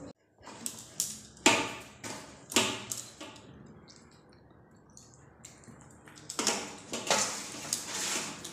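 Hands kneading wheat-flour dough in a steel plate: the steel plate and bowl knock and ring several times in the first three seconds, the loudest about a second and a half in. After a quieter stretch, bangles and the plate clink in a denser run of bright clatter near the end.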